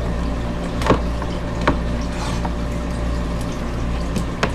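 Aquarium water circulation: a steady pump hum with running, splashing water. Three light knocks break in, about one second, two seconds and near the end.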